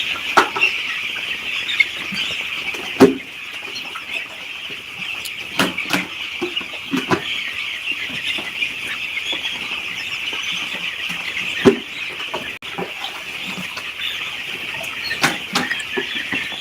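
A large flock of chicks peeping all together in a steady, high chorus, with a few sharp knocks scattered through it.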